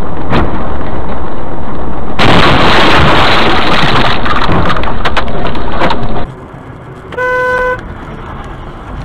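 Car-to-truck collision heard through a dash cam: loud engine and road noise, then about two seconds in a few seconds of heavy crashing and scraping noise as the car hits an oncoming truck. After a sudden cut, a car horn sounds once, briefly, about seven seconds in.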